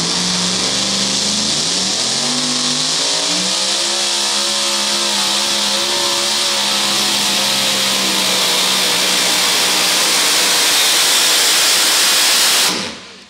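Supercharged engine of a super modified two-wheel-drive pulling truck at full throttle, dragging a weight-transfer sled. Its pitch climbs over the first few seconds, then holds steady at high revs before the engine cuts off abruptly near the end.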